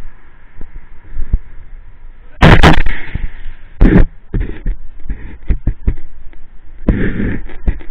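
Two very loud bangs about a second and a half apart, the first a little drawn out, among scattered sharp clicks and knocks.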